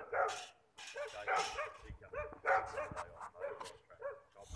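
Dogs barking in a quick string of short, repeated barks, about two to three a second.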